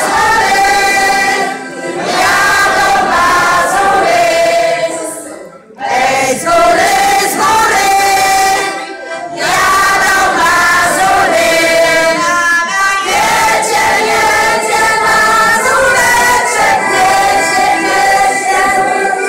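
A women's folk ensemble singing a Polish folk song together in a group, in phrases broken by short pauses for breath.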